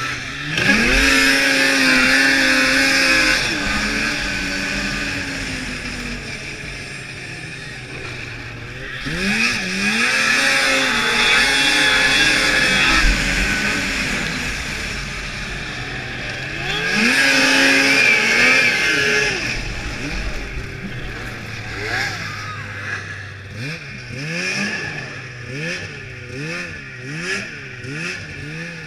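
2002 Blade Striker 600 snowmobile engine heard from on board, revving up hard and easing off three times as it is ridden through the course. Near the end it breaks into a string of short throttle blips, each a quick rise and fall in pitch, about one a second.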